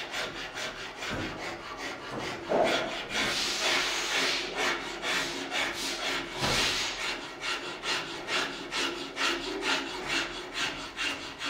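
A hand file filing back and forth along a wooden shotgun stock held in a vise, shaping the wood. It goes at about three to four strokes a second, with a couple of longer, louder strokes about a third and halfway in.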